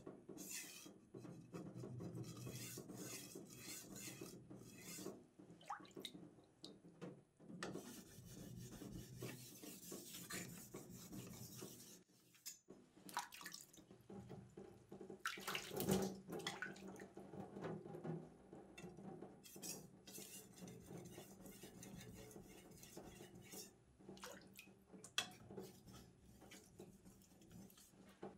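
Usuba knife being hand-sharpened on a wet whetstone: soft, irregular wet scraping of the steel blade across the stone, with water dripping and splashing.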